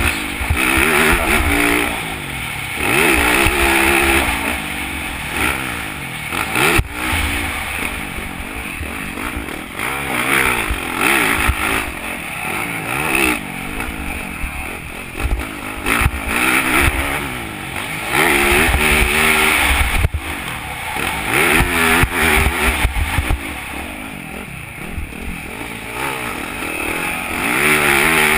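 Motocross bike engine revving up and falling off over and over as it is ridden hard around a race track, with wind rushing over the on-board camera microphone. A couple of sharp knocks come through, one about seven seconds in and one about twenty seconds in.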